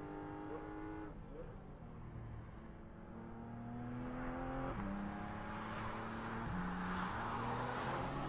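Porsche Cayman GT4 RS's naturally aspirated 4.0-litre flat-six accelerating hard, its pitch climbing and then dropping abruptly about a second in and again near five seconds, as it shifts up. A rushing hiss grows over the engine in the second half.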